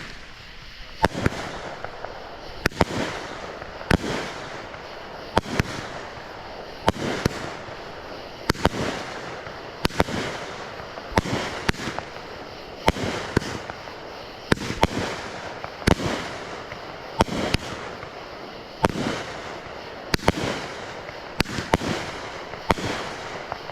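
A 40-shot, 500-gram consumer fireworks cake firing in a continuous sequence. There are sharp shots about once a second, each followed by a fading hiss and crackle from the breaks.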